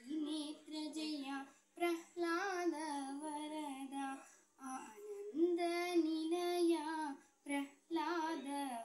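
A young girl singing solo without accompaniment. She sings in phrases of long held, wavering notes, with short breaks for breath between them.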